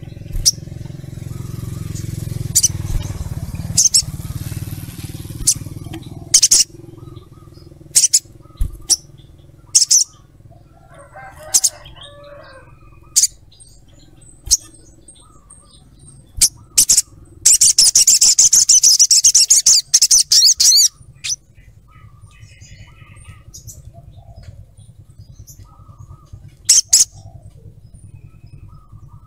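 Olive-backed sunbird, a male in patchy moult, giving short, sharp high calls a second or two apart. About halfway through it breaks into a rapid chattering trill lasting about three seconds. A low hum runs underneath, and there is a hiss for the first few seconds.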